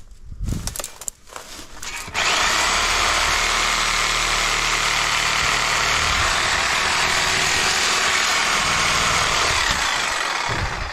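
A power tool starts abruptly about two seconds in, runs steadily and loudly for about eight seconds, then dies away near the end. A few knocks come before it.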